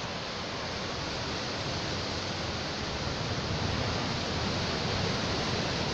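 Steady rushing of sea surf breaking and washing against the rocks at the foot of the cliff.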